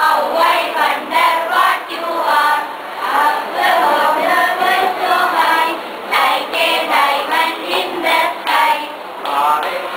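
Voices singing a Malayalam verse together in chorus, a group of schoolchildren, in short phrases with held, wavering notes.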